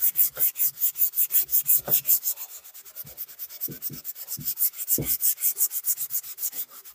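Finest-grit (400) sanding sponge rubbed quickly back and forth by hand along the edge of a wooden board: a scratchy rasping at about five or six strokes a second. This is the last, finest pass, meant to close the open pores of the edge so it can be painted.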